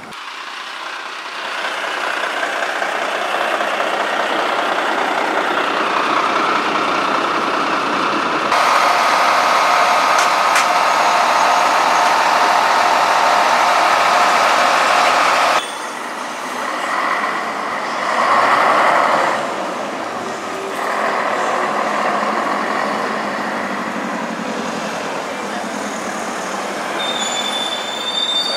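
Diesel buses and coaches running and driving past close by: engine and tyre noise that builds over the first few seconds, changing abruptly twice as one bus gives way to the next. A steady whine runs through the middle stretch, and a thin high squeal sounds near the end.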